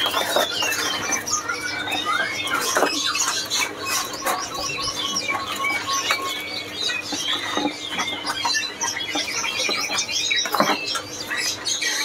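Many caged songbirds chirping and calling at once, a dense overlapping mix of short high chirps and quick whistled slurs, with scattered sharp clicks.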